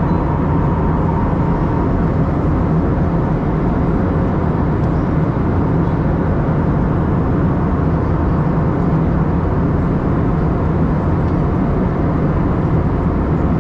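Steady jet airliner noise heard from inside the passenger cabin: the engines and rushing air make an even roar with a low hum and a faint whine.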